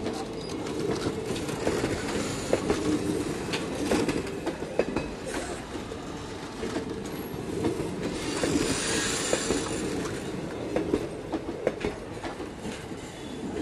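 Indian Railways coaches rolling past close by: steady rumble of steel wheels on the rails with repeated clicks and clatter as the wheels cross rail joints.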